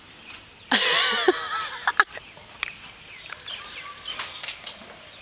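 A woman's high-pitched, wordless squeal of delight, lasting about half a second and starting about a second in, followed by a few sharp clicks.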